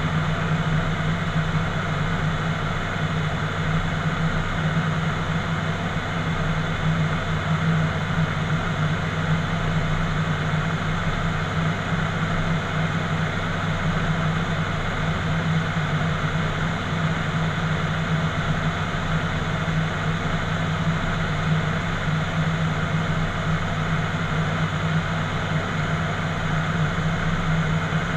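ATR 72-600's Pratt & Whitney PW127 turboprops and six-blade propellers droning steadily in flight, heard from inside the cockpit as a low hum under a constant rush of airflow noise.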